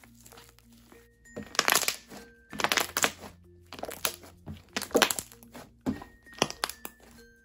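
Soft, lotion-softened glue slime squeezed and pressed by hand, giving a string of irregular squishes and crackling air-bubble pops, over quiet background music.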